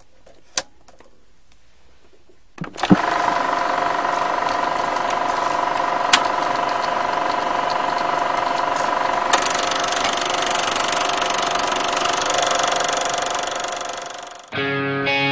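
A few sharp clicks, then about three seconds in a steady mechanical whirring with two steady hum tones starts; it runs evenly, grows brighter about halfway through, and fades away near the end.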